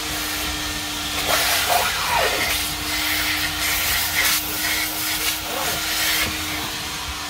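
Coin-operated car-wash upholstery shampoo and vacuum machine running: a steady hiss through the hose as its brush nozzle is worked over a cloth car seat, with a steady hum that cuts off shortly before the end.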